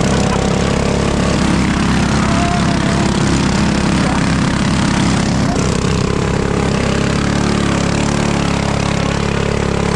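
Mini trike's small gas engine running steadily, its note shifting slightly about five and a half seconds in.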